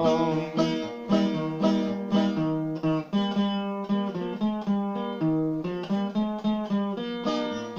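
Acoustic guitar played alone between sung verses: a steady rhythm of plucked bass notes and strummed chords.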